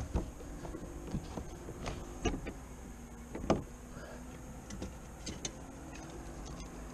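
Clicks and knocks of a bass boat's deck storage compartment being opened and rummaged through for a fish scale, the two loudest knocks about two and three and a half seconds in, over a faint steady hum.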